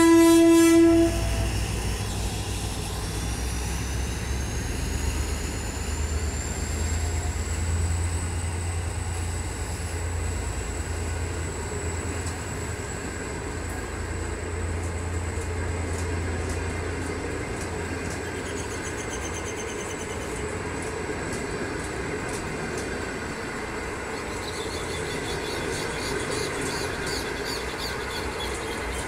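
A GM GT22CW-3 diesel locomotive's horn ends about a second in, then the locomotive's diesel engine runs past with a low rumble that fades over the next fifteen seconds. A thin high whine rises over the first several seconds and holds, and the passenger coaches roll by, their wheels clicking over the rails.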